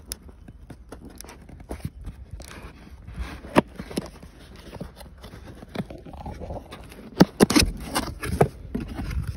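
Cardboard box opened by hand: the lid and flaps scrape and rustle, with a cluster of sharper knocks and scuffs near the end.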